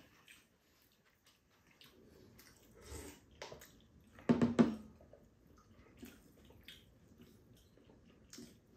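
Wet slurping and chewing of spaghetti noodles, with a few small clicks of chopsticks. The loudest burst comes about four seconds in.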